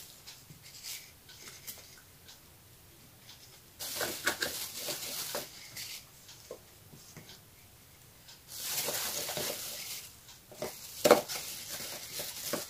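Hands handling cookies and a plastic wrapper while laying the cookies onto cream in a glass baking dish. There are two spells of soft rustling, with light scattered taps and clicks, and a sharper tap near the end.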